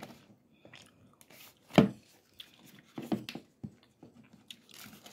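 Hands prying at the snap-on lid of a plastic tub, giving several sharp plastic clicks and snaps, the loudest about two seconds in and a quick cluster about a second later, with light rustling between. The lid is still holding fast.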